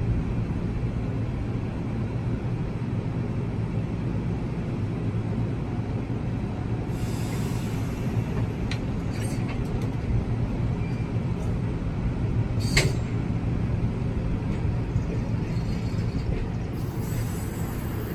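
NJ Transit bilevel passenger coach rolling slowly by, with a steady low rumble and hum. A brief hiss comes about seven seconds in, and a single sharp clank about thirteen seconds in.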